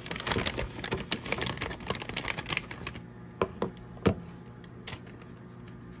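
A resealable Mylar foil bag being pulled open by hand, its foil crinkling and zip top crackling in a rapid run of clicks for about three seconds. This is followed by a few separate light knocks as a cell phone is taken out and set down on a wooden tabletop.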